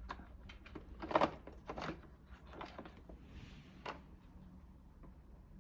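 A few light clicks and knocks with a brief rustle: the Roborock S7 robot vacuum's plastic dustbin being handled.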